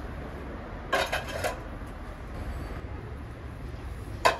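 Kitchen clatter: a few quick knocks about a second in and two sharp clanks near the end, over a steady low hum.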